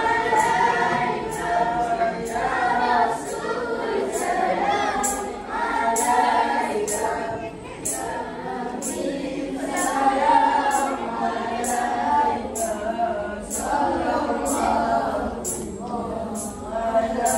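A group of children singing together in chorus, with a steady percussion beat of about two strokes a second.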